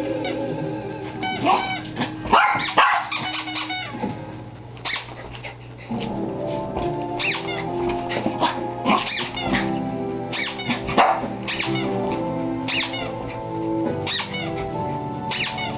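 Miniature pinscher barking in shrill, short, repeated barks, over background music that becomes clear about six seconds in.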